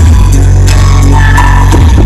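Music played at very high volume through a huge stacked outdoor 'sound horeg' speaker rig during a sound check, dominated by heavy, sustained deep bass notes.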